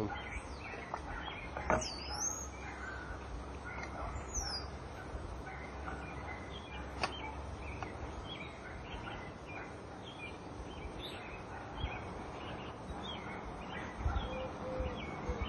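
Small birds chirping and calling, with a couple of quick whistled glides early on. A couple of sharp clicks, and a low rumble that fades about halfway through.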